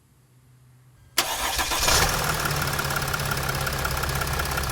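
An engine starts suddenly about a second in, rises briefly, then settles into a steady run.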